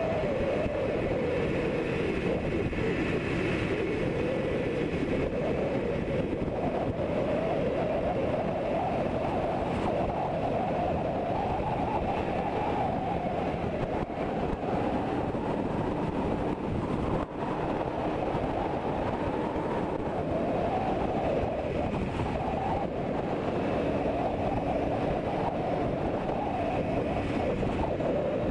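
Yamaha RD400's two-stroke parallel-twin engine running at a steady cruise, with wind rushing over the helmet-mounted microphone; the engine note swells and eases gently.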